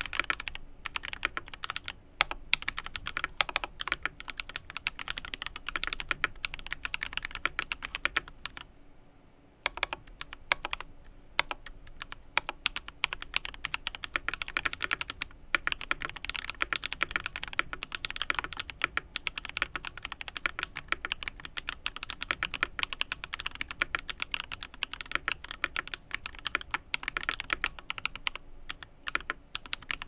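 Typing on a KBDFans KBD75 V3.1 mechanical keyboard with lubed Everglide Dark Jade tactile switches, a brass plate and PBT cherry-profile keycaps: a steady stream of keystrokes, with a short pause about nine seconds in.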